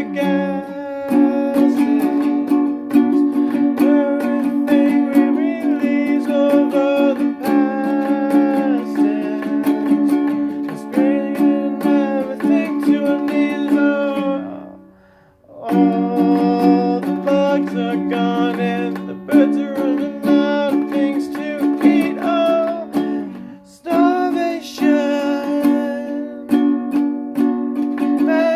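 An acoustic string instrument strummed in a steady rhythm, with wordless singing over it. The playing drops out briefly twice, about halfway and about three-quarters through, then picks up again.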